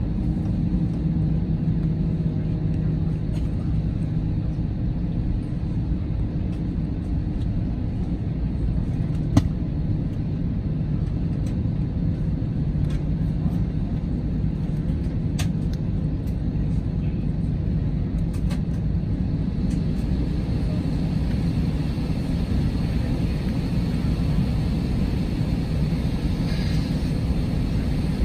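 Steady low rumble inside an Airbus A320 cabin, the hum of the airliner's ventilation and systems before takeoff. There is one sharp click about nine seconds in and a few fainter clicks later.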